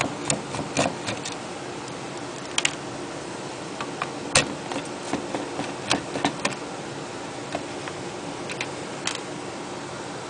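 Irregular sharp clicks and taps of a screwdriver working the screws out of a hard drive's metal mounting carriage, the loudest about four seconds in, over a steady low hum.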